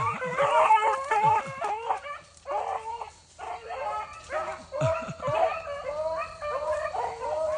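Beagles giving tongue while running a rabbit by sight: rapid, overlapping yips and bays from more than one hound, several a second, going on without a break.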